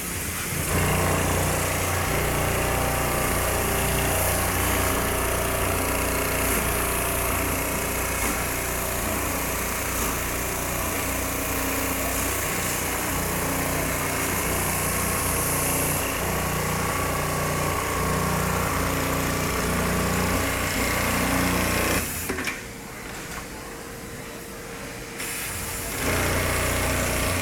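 Garudan GPS 6032 programmable pattern sewing machine stitching a safety-shoe upper held in a clamp jig, running steadily. It stops about 22 seconds in, leaving a quieter hum for a few seconds, then starts sewing again near the end.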